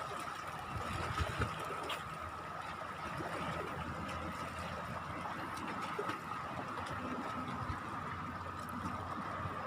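Seawater washing and trickling along the shore, with a steady faint high tone throughout. About seven seconds in, the low hum of a motor comes in.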